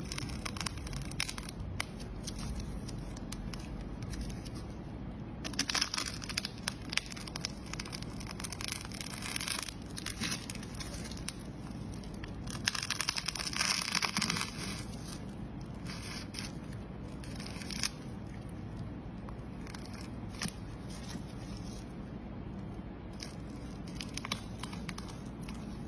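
A small blade cutting and scraping into a ball of layered tape wrapped in clear plastic film, with dense crackling and tearing as it slices through the layers. Two longer, louder stretches of tearing come about a quarter of the way in and about halfway through.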